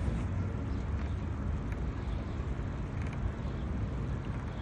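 Steady low rumble of outdoor background noise, like road traffic, with a few faint ticks.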